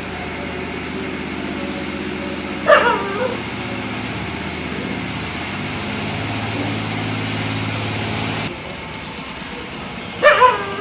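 A dog barks at a fox: one short burst of barks about three seconds in and another near the end. A steady mechanical drone runs underneath and cuts off abruptly about two seconds before the second burst.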